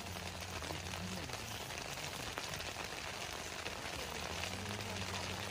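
Steady rain falling, with a faint low hum underneath.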